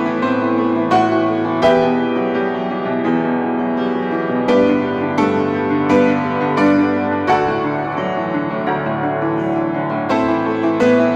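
Piano playing a slow piece: single notes and chords struck one after another, roughly every half second to second, each left ringing under the next.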